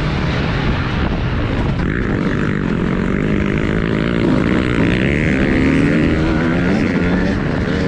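TM Racing 250 motocross bike's engine running hard on the track, its pitch rising and falling as the throttle is worked and gears change, over a steady low rumble.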